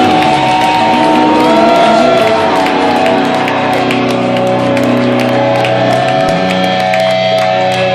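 Melodic death metal band playing live and loud: distorted guitars holding sustained notes over drums with frequent cymbal hits.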